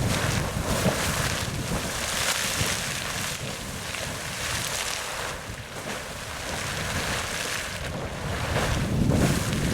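Sawmill Geyser, a fountain-type geyser, erupting: water splashing in brief, overlapping bursts, a continuous rushing that swells and eases, a little louder near the end.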